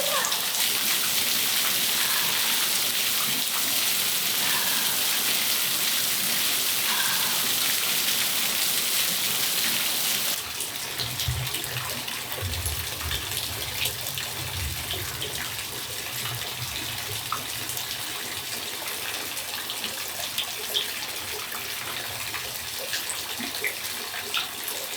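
Steady rain falling, a dense even hiss that drops abruptly about ten seconds in to lighter rain with separate drops and drips tapping on surfaces. A few brief low rumbles come shortly after the change.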